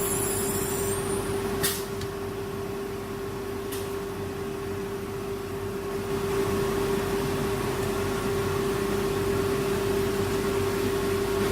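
ATC CNC router running with a steady high-pitched spindle whine over machine and extraction noise. Two sharp clicks come about two seconds in and again about four seconds in, and the machine gets a little louder about six seconds in.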